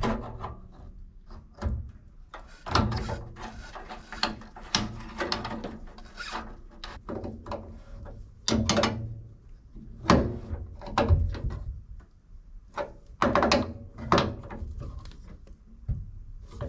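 Irregular clicks, knocks and short scrapes from hands working in a gas water heater's burner compartment, fitting the burner assembly's tubes back in place.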